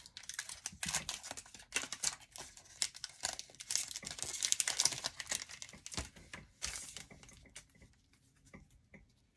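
Foil wrapper of an Upper Deck Series One hockey card pack being torn open and crinkled by hand, a dense crackling that dies away about seven or eight seconds in.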